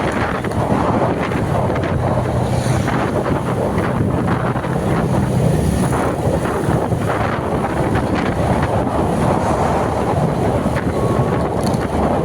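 Steady wind buffeting the microphone, with a continuous low rumble underneath.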